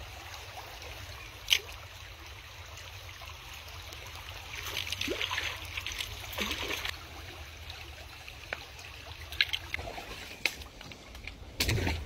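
Small stream trickling, with the spinning reel being cranked midway and a few light clicks. A heavy low bump comes near the end.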